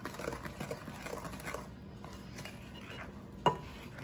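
Wooden spoon stirring flour into a thick batter in a glass mixing bowl: soft scrapes and light taps, with one sharper knock about three and a half seconds in.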